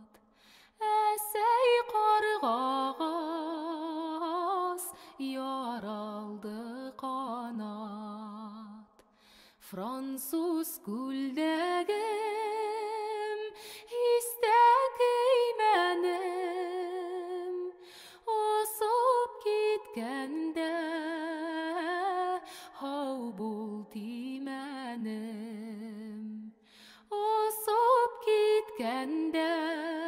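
A solo woman's voice sings a slow melody without accompaniment. Held notes carry vibrato and phrases glide between pitches, with short breaks about nine seconds in and again near the end.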